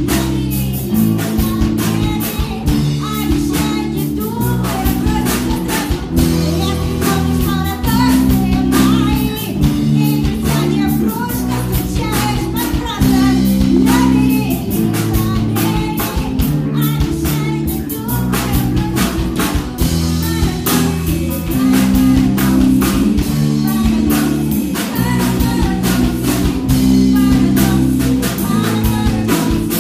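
Live band playing a song over a PA: drum kit, electric guitar and bass in a steady repeating chord pattern, with a female singer's voice over it.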